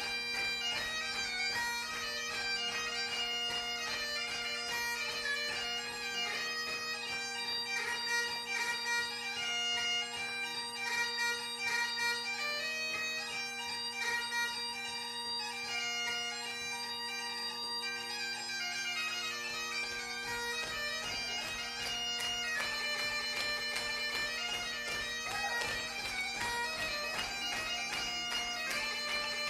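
Mouth-blown Highland-style bagpipes playing a solo tune: a fast-moving chanter melody over the steady drones.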